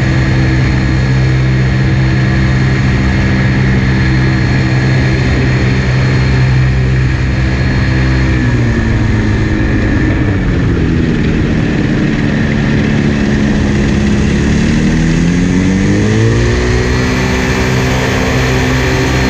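Ramphos amphibious trike's engine and pusher propeller running on the water. The engine note drops about eight seconds in, stays lower for several seconds, then climbs again and holds at a steady higher pitch near the end.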